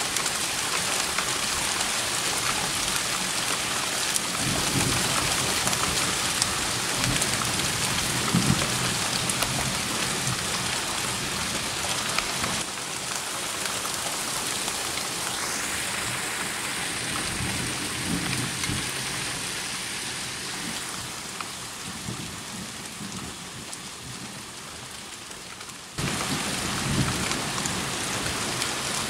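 Steady rain hissing down in a thunderstorm, with low thunder rumbling several times.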